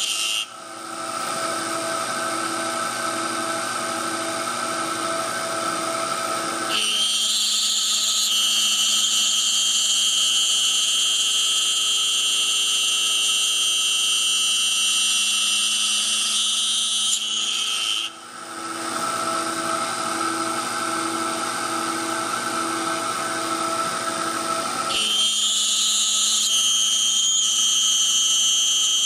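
CNC machine milling a wooden ring insert: a steady, high-pitched spindle whine over cutting noise. The sound switches between two states, a lower stretch with a soft pulsing beat and a higher, brighter whine, changing about 7, 18 and 25 seconds in, with brief drops in level near the start and about 18 seconds in.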